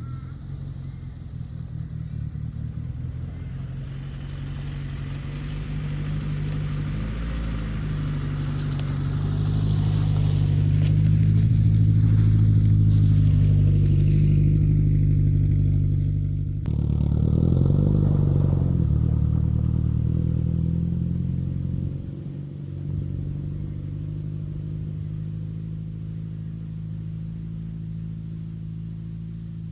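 Car engine, the Morris 1100 S's small four-cylinder, pulling under way. It rises in pitch and loudness for the first half, breaks off suddenly just past halfway, pulls again, then settles to a steadier, quieter run.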